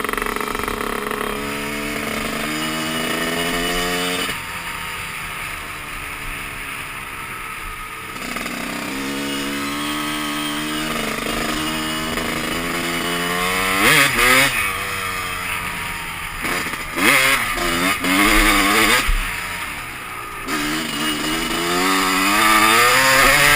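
Two-stroke Honda CR250 dirt bike being ridden. The engine revs up and drops back again and again, with its hardest, loudest revs a little past halfway and near the end.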